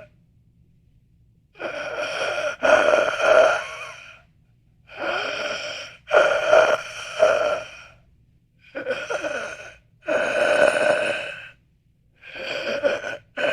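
A person's dying breaths: four heavy, gasping breaths, each in two parts with the second longer and broken up, separated by short silent pauses.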